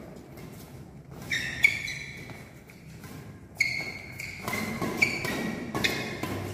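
Badminton rackets striking a shuttlecock in a fast drill exchange: a string of sharp, irregularly spaced hits. Several brief high-pitched squeaks come in between.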